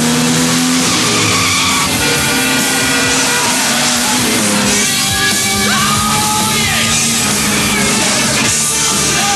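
Soundtrack music over two sports cars racing, a Corvette and a Jaguar E-Type, their engines running and tyres skidding.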